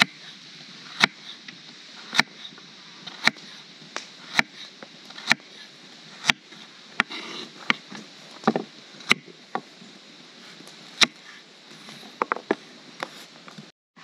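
A chef's knife slicing a carrot into rounds on a wooden cutting board, each cut ending in a sharp knock on the board about once a second. Later the knocks turn irregular, with a few quick cracks close together near the end.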